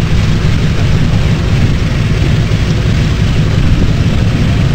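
Lockheed PV-2 Harpoon's twin Pratt & Whitney R-2800 radial engines running at idle on the ground, a loud, steady, deep rumble.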